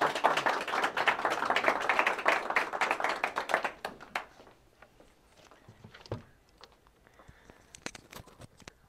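Audience applauding, a dense patter of claps that dies away after about four seconds. Then a few soft knocks and clicks of small things being handled on a table.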